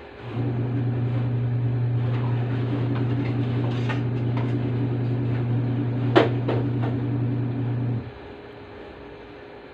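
An electric appliance humming steadily for about eight seconds, then cutting off abruptly, with one sharp click about six seconds in.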